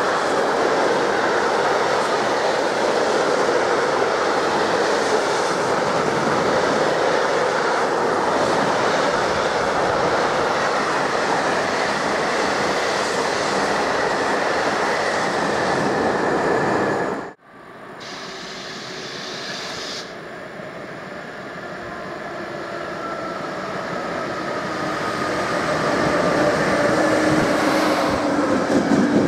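A train running past on the rails, a loud steady rush of wheel and rolling noise. It cuts off abruptly about two-thirds of the way through, and then another train approaches, its sound growing steadily louder with a faint whine that slowly falls in pitch.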